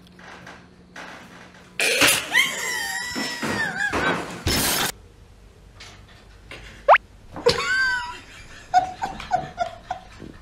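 High-pitched human shrieks and squeals in two long bouts, with a quick rising squeak between them and a run of short yelps near the end.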